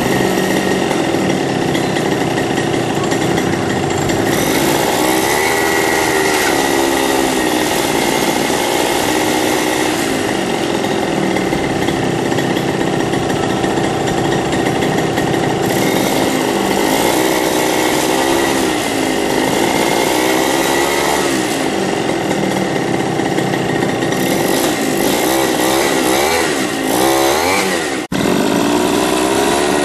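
Bike motor running loudly and continuously, its pitch rising and falling several times as it is revved up and down. It drops out for a moment near the end, then carries on.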